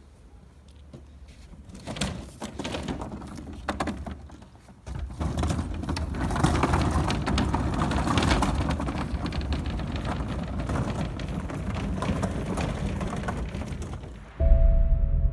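Large plastic wheeled waste containers rolled along asphalt: a steady rattling rumble of wheels and lids that starts suddenly about five seconds in, after a couple of knocks. Music comes in near the end.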